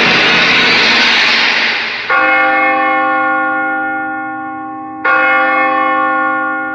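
A bell struck twice, about three seconds apart, each strike ringing on in many steady tones and slowly dying away. Before the first strike, a loud noisy wash from the music fades out.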